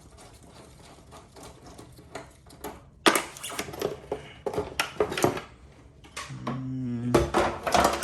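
Ticking, tapping and clattering of hard parts being handled on a motorcycle, with louder knocks and rattles starting about three seconds in.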